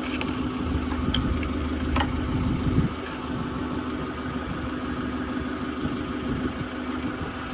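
Forklift engine idling steadily, a little louder for the first few seconds and then settling. A few light metallic clinks come about one and two seconds in.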